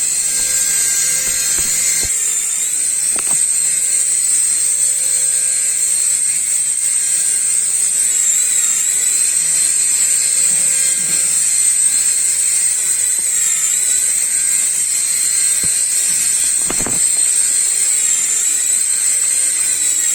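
Small electric motor of a battery-powered toy running with a steady high-pitched whine, its pitch sagging briefly about every five seconds as it takes load.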